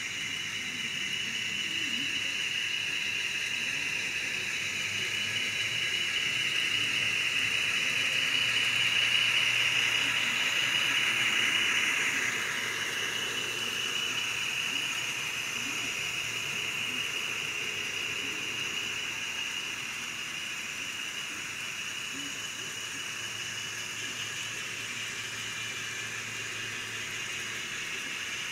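N scale model passenger train rolling past on its track: a steady metallic hiss of many small wheels on rail. It grows louder as the long string of cars runs close by, then drops in pitch and eases off about twelve seconds in.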